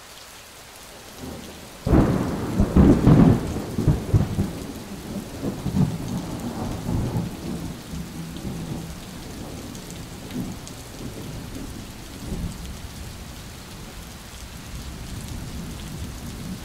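Thunderstorm: steady rain, then a loud thunderclap about two seconds in that rolls on for several seconds and fades back into the rain, with a few fainter rumbles later.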